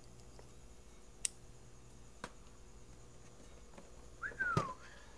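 Quiet handling of a cardboard toy box as its bottom flap is opened: a few light clicks, then a short falling squeak with a click near the end. Under it runs a faint, steady chirring of insects.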